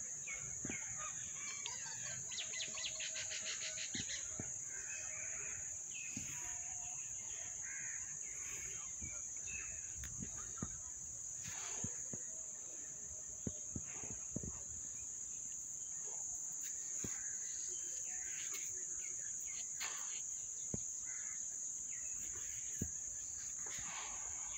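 A steady high-pitched insect drone with birds calling over it, including a quick rattling call about two seconds in, and a few scattered soft knocks.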